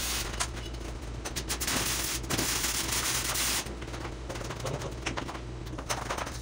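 Stick-welding arc with an E6011 rod crackling and sputtering in uneven stretches, over a steady low hum.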